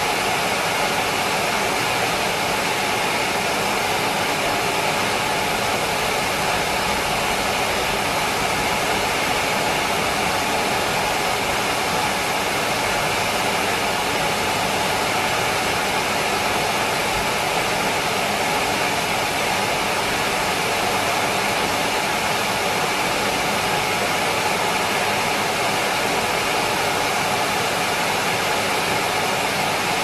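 Numatic Henry vacuum cleaner running steadily, its motor noise unchanging.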